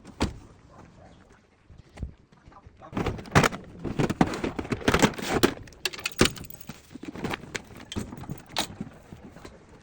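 Irregular knocks and clanks of metal gate parts being handled and fitted: a few single strikes, then a dense clatter of knocks for about three seconds, then scattered knocks.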